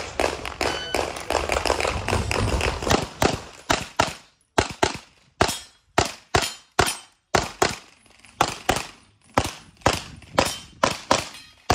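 Walther PDP Steel Frame 9mm pistol fired in fast strings of shots, many in quick pairs, with short breaks between strings, as in a competitor shooting a practical pistol stage. A dense rumbling noise lies under the shots in the first few seconds.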